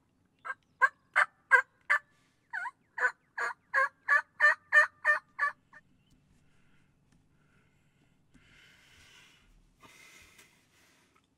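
Turkey yelping: a run of about a dozen sharp notes at about three a second, with a brief break partway through. Faint rustling follows near the end.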